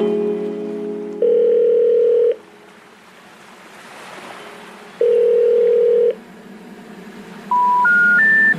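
Telephone line tones. A buzzing tone fades for about a second, then come two ringing beeps about a second long with nearly four seconds between them, with a faint hiss swelling in the gap. Near the end come three short rising tones of the kind that come before a 'number not in service' message.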